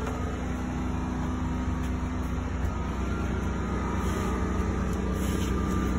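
Westinghouse WGen9500DF dual-fuel generator running steadily on propane, a constant engine hum under light load before the bike chargers start drawing power.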